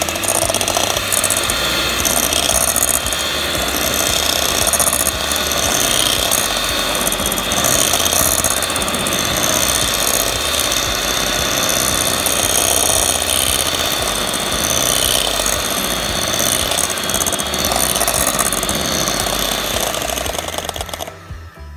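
Electric hand mixer running steadily, its beaters whipping egg yolks and sugar; it switches off about a second before the end.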